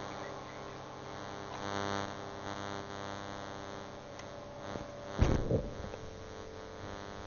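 Steady electrical mains hum with a buzz on a telephone line while a call is being connected. A brief loud thump comes about five seconds in.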